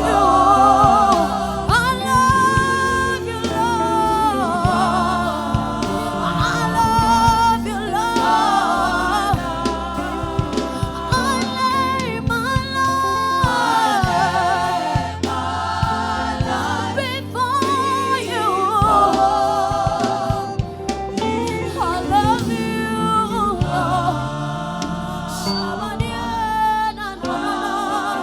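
Gospel music: voices singing together over a steady instrumental backing.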